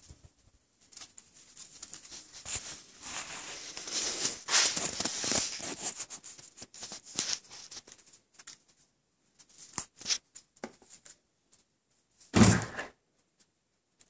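Rustling, crunching steps through deep snow, a few light clicks, then one heavy thunk about twelve and a half seconds in as a Cadillac CTS-V's door is opened.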